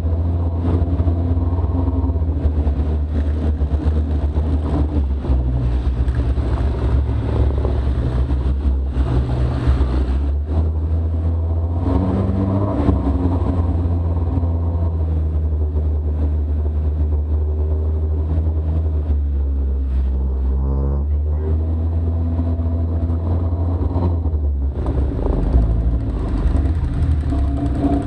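Arctic Cat Wildcat side-by-side engine running on the trail, loud and continuous over a heavy low rumble, its pitch rising and falling with the throttle, with a clear sweep about twenty seconds in.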